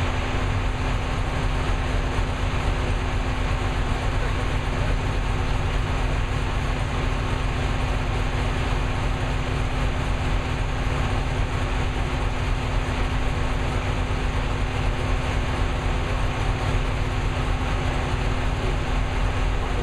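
Carbureted V8 with a Lunati solid-lifter cam idling steadily and loudly, its valve lash freshly set to .014 hot, air cleaner off.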